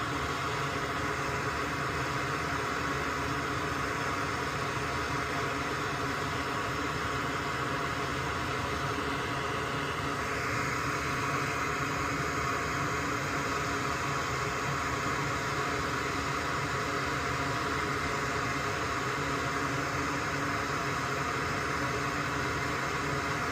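Steady whirring hiss of a small electric fan or blower at the soldering bench, with a slight change in tone about ten seconds in.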